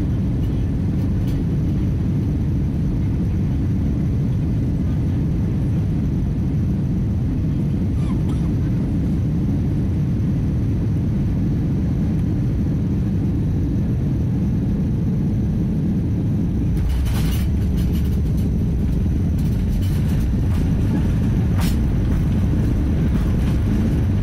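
Airbus A319 cabin noise through touchdown and rollout: a steady, loud, low rumble of engines, airflow and runway. From about two-thirds of the way in, several short knocks and rattles come through, and the rumble grows slightly louder near the end.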